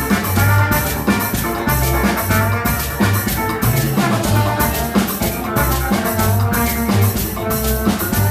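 Live Afro-Latin band playing, with drum kit and percussion keeping a steady beat under a bass line and pitched instruments on top.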